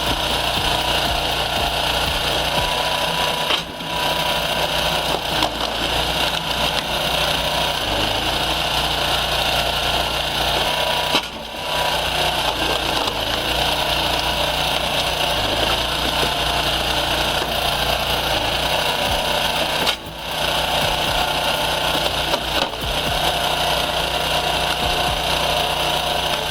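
A machine or power tool running steadily, with brief drops in sound about 4, 11 and 20 seconds in.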